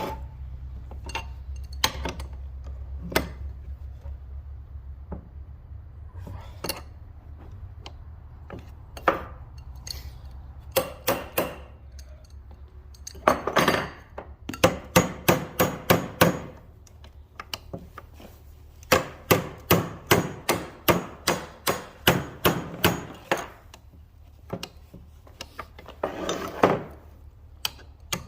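Metal wrench clicking and clinking on the mounting nut of a tractor starter switch as it is tightened: scattered single clicks, then two runs of quick, even clicks, about four or five a second, in the middle and later part.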